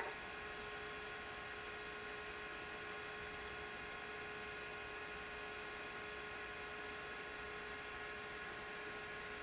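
Commodore 900 computer running: a steady hum made of several held tones, from its fan and spinning hard disk, with one brief click at the very start.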